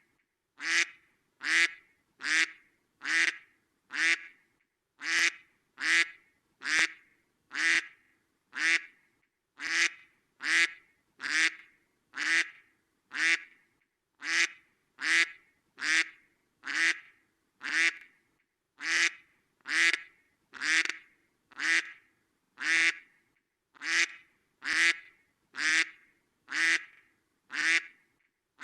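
Duck quacking over and over in a steady rhythm, about one short quack every 0.8 seconds, with now and then a slightly longer pause.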